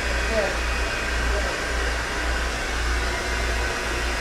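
Steady whirr of an electric hair appliance running close by, with an uneven low rumble underneath.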